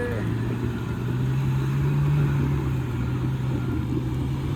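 Off-road vehicle's engine pulling under load on a steep dirt climb, its note rising a little about a second in and holding steady.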